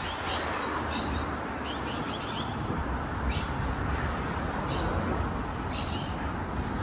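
Birds chirping in short, sharp calls every second or so, a few in quick runs, over a steady low background rumble.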